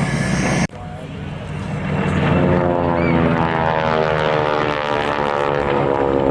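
Radial piston engine of a propeller-driven trainer aircraft flying a display pass: a steady drone with many tones. It starts after a sudden cut about a second in and grows louder over the next couple of seconds.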